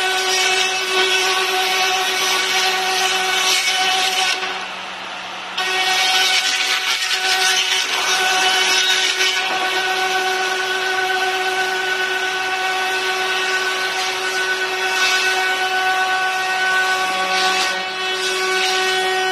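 Router spindle on an industrial robot arm milling a stack of wood panels: a steady high whine with the rasp of the bit cutting wood. About four seconds in, the cutting noise drops away for about a second, then comes back.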